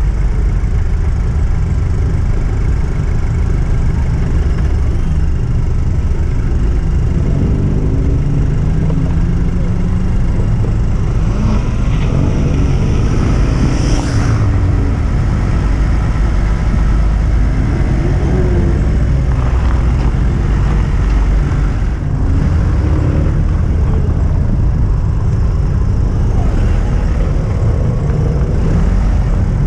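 Car engine running under a heavy low rumble, its pitch rising and falling several times as it accelerates and eases off. There is a short sharp noise about halfway through.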